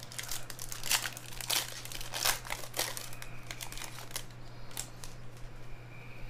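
Foil wrapper of a trading-card pack crinkling and tearing as it is opened by hand. The crackling is densest from about one to three seconds in, then thins to a few scattered crinkles.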